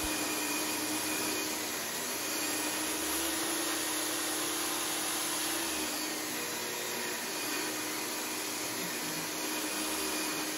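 Benchtop table saw and the shop vac hooked to it for dust collection, running steadily while maple boards are ripped into strips: an even, unbroken machine noise.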